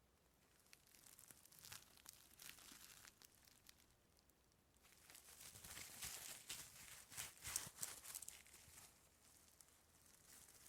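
Rope being stretched and moved, giving faint crackling and rustling with many small creaks. It grows busier and louder from about halfway through, then eases off near the end.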